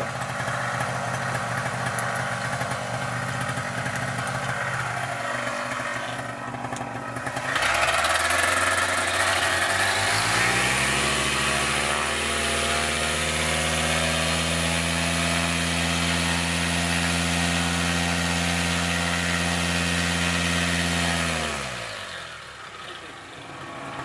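Paramotor's two-stroke engine idling, dipping about five seconds in, then throttled up in two steps to a steady high run. Near the end it winds down and stops.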